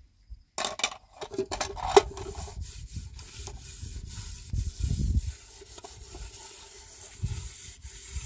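Scraping and rubbing from manual work, with a cluster of sharp clicks and knocks in the first couple of seconds.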